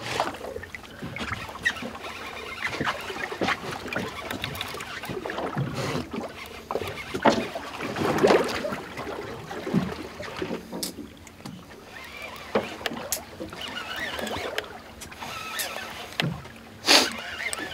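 Sounds aboard a small fishing boat at sea: water splashing and lapping against the hull, with irregular knocks and clicks and a faint steady low hum.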